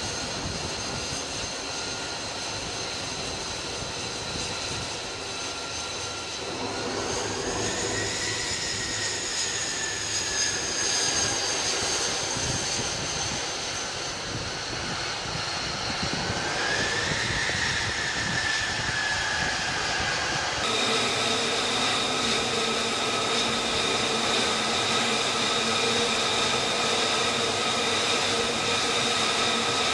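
An F-35C's Pratt & Whitney F135 jet engine running at taxi power on a carrier flight deck: a steady whine over a rushing hiss, rising in pitch about seven seconds in and again about sixteen seconds in as the power is briefly increased. About two-thirds of the way through, the sound changes abruptly to a steadier whine with a fuller hum.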